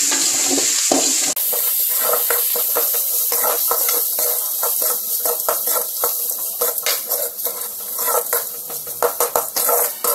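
A spoon stirring and scraping grated raw banana in a metal pan over the flame, with frequent quick clinks against the pan over a steady sizzle. The clinks come thickest near the end.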